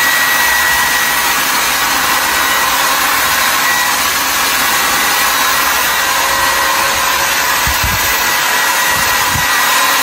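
Conair Cord-Keeper 1875-watt travel hair dryer running steadily: an even rush of blown air with a thin high whine from its motor.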